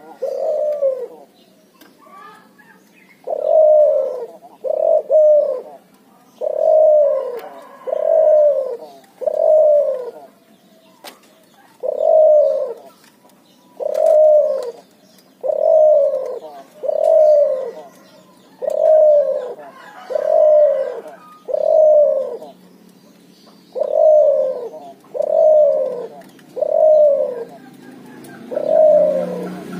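Hybrid dove, a cross of a domestic ringneck dove and a spotted dove, cooing over and over. Each coo is low, rising then falling in pitch, and they come in runs of two to four, a little over a second apart, with short pauses between runs.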